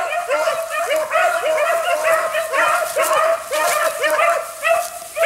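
Pack of rabbit-hunting hounds in full cry on a rabbit's trail: several dogs bay over one another without a break, with short arched yelps several times a second.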